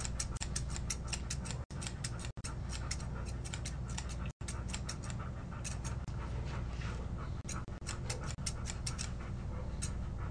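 Thinning shears snipping fast through an Airedale terrier's facial hair under the eye, about five quick snips a second, thinning to a few scattered snips for a couple of seconds midway before picking up again.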